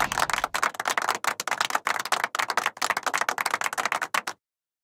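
Cartoon scampering-footsteps sound effect: a rapid, rattling patter of many quick taps a second that cuts off suddenly a little over four seconds in.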